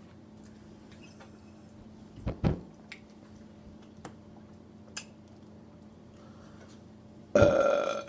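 A person burping after drinking carbonated soda: a short, low double burp about two and a half seconds in, then a loud, longer burp near the end.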